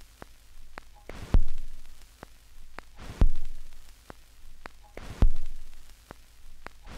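Sparse drum hits opening a punk rock track: a heavy kick-and-cymbal hit about every two seconds, each ringing away, with light ticks in between.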